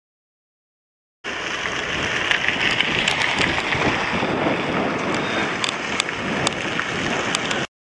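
Steady rushing noise of wind on the camcorder microphone, with scattered faint clicks. It cuts in about a second in and stops abruptly just before the end.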